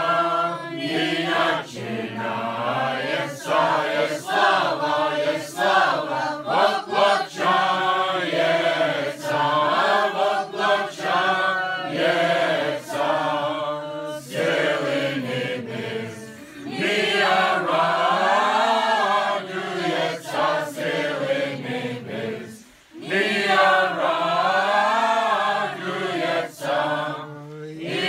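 A group of voices singing a Slaaviq (Orthodox Christmas starring) carol together, a chanted melody of long held notes. It breaks off briefly about three-quarters of the way through.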